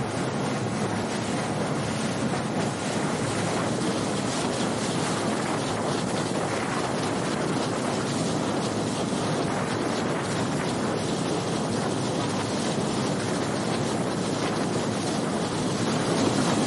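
Steady rush of wind on the microphone and water spraying off the hull of a small outboard skiff running fast across open water, with no separate engine note standing out.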